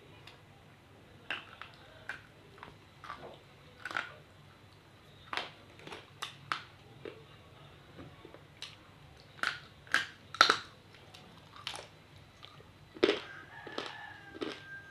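Biting and chewing dry chunks of multani mitti (fuller's earth clay): a run of irregular sharp crunches, the loudest a cluster about ten seconds in.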